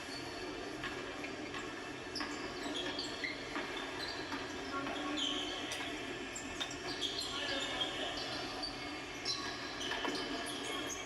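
Seagulls calling, many short overlapping cries throughout, over a steady low background rumble.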